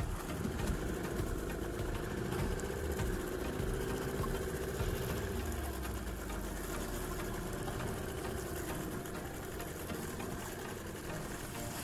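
Small boat engine running steadily at low speed, a continuous hum with a low rumble and the hiss of wind and water.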